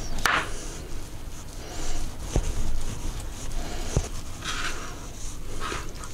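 Chef's knife slicing through a roast beef joint: a few scraping strokes, with two sharp taps as the blade meets the cutting board.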